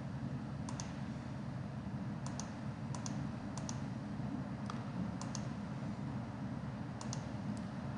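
Computer mouse clicking, about eight sharp double clicks at uneven intervals, as the machine simulation is stepped along, over a steady low hum.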